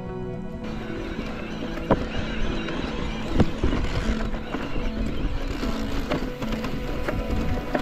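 E-mountain bike riding a rough track, heard as a steady rumble of wind and tyres with repeated sharp knocks and rattles from bumps. From about a second in, this rumble sits under background music.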